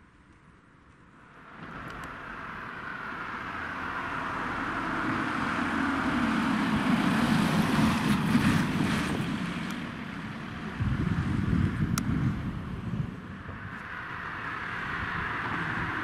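Cars driving past on a street. A passenger van approaches and passes close by, its engine and tyre noise swelling to a peak about halfway and then fading, followed a few seconds later by a shorter burst of engine noise. Another car approaches near the end.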